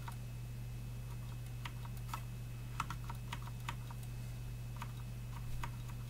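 Keystrokes on a Cooler Master MasterKeys Pro L mechanical keyboard with linear Cherry MX Red switches and thin stock ABS keycaps: sparse, irregular clacks with a quick run of several in the middle, over a steady low hum.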